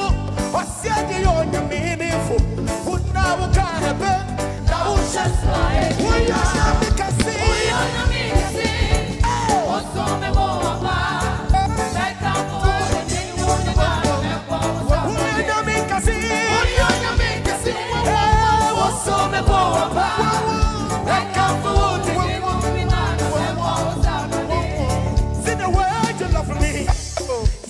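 Live African gospel music: voices singing over a band with a steady beat and heavy bass.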